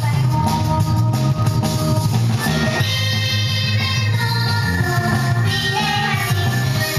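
Music: a song with singing over a steady beat, with guitar and drums.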